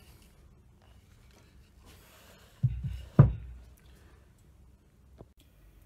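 A cast-iron hand plane being handled and put down on a wooden workbench. A few dull thuds about two and a half seconds in are followed by one sharp knock, the loudest sound, with a little ring after it. A small click comes near the end.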